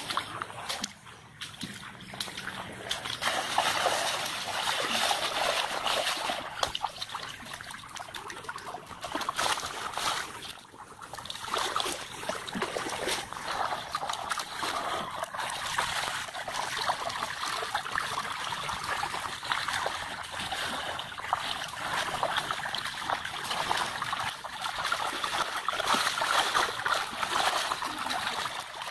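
Shallow running water trickling and splashing steadily, with brief dips in level about two seconds and eleven seconds in.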